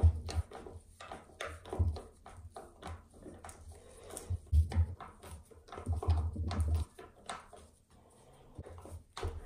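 Irregular knocks, taps and low thumps, several a second at times, with the heaviest bumps about half a second, four and a half seconds, and six seconds in.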